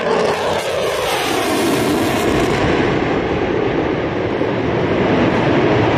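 Jet roar of a Lockheed Martin F-22 Raptor's twin Pratt & Whitney F119 turbofans in a flypast: a loud, steady rushing noise whose pitch falls in the first second.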